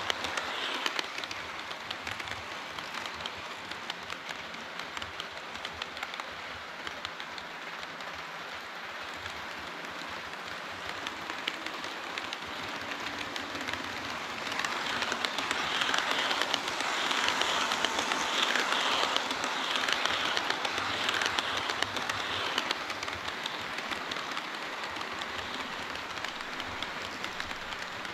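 HO-scale model train running on the layout: the metal wheels roll and click over the rails in a dense, crackling rattle. It grows louder about halfway through and eases off again a few seconds before the end.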